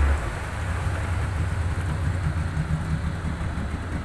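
A boat's engine running steadily with a low hum, with a brief louder surge at the very start.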